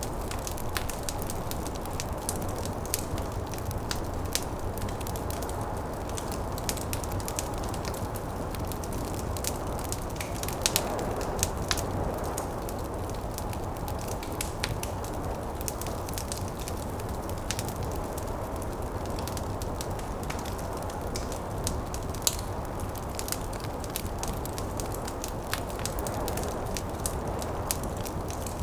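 Wood fire crackling, with frequent sharp pops and a couple of louder ones about eleven seconds in, over a steady low rushing of snowstorm wind.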